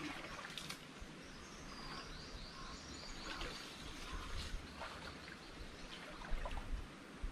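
Faint splashing and sloshing of a person wading through a shallow stream. About a second in, a bird calls a quick run of high chirps lasting a couple of seconds.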